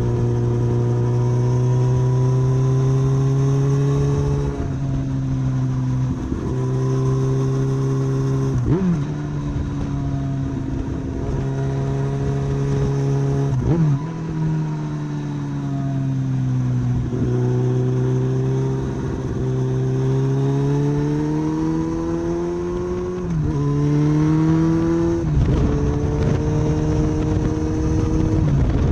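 Kawasaki ZX14R inline-four running through a Danmoto GP dual slip-on exhaust while being ridden. The engine note climbs steadily under acceleration, then drops suddenly at each gear change, about five times, with short blips at some of the shifts.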